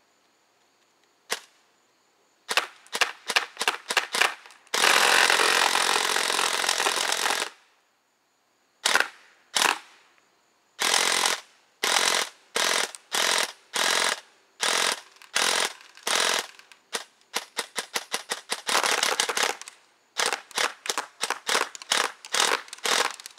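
JG Stubby Killer M4 airsoft electric gun with a dual sector gear, running on an 11.1 V LiPo, firing. It fires a single shot, then short bursts, then one continuous full-auto burst of about two and a half seconds, then many more short bursts and a second long burst near the end. The rapid rattle reflects a rate of fire close to 50 rounds a second.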